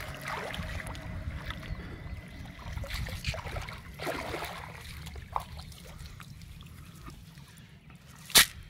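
Shallow river water splashing and sloshing as a wading man gathers up a wet cast net and hauls it out, the splashes thinning out after about five seconds. Near the end, one short, sharp loud knock.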